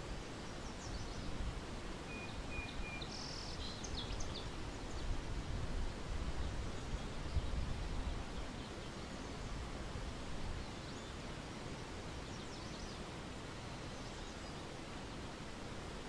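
Outdoor ambience: a steady rushing noise with a low rumble that swells in the middle, and a few brief bird chirps about three seconds in and again near the end.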